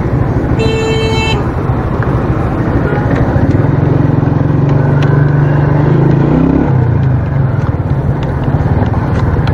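Motorcycle engine running at low speed. A horn sounds briefly about half a second in, and the engine note rises about three and a half seconds in, dropping back near seven seconds.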